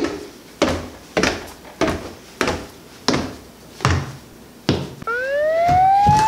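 Footsteps coming down wooden stairs: about eight heavy steps, a little over half a second apart, each a sharp knock. About five seconds in, a smooth rising whistle-like tone begins and keeps climbing.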